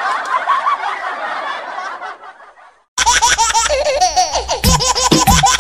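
Laughter sound effect, as of several people laughing at once, fading out over the first three seconds. About three seconds in, upbeat background music with a steady beat starts abruptly.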